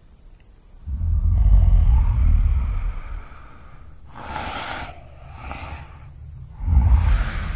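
Horror creature sound design: a low growling rumble, then three heavy breaths, each under a second long, with the last one the loudest.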